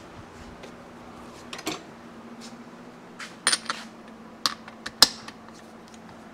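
Socket, ratchet wrench and extension clinking together and against the aluminium crankcase as they are picked up, assembled and set on the detent bolt. A few separate sharp metallic clinks, the loudest about five seconds in.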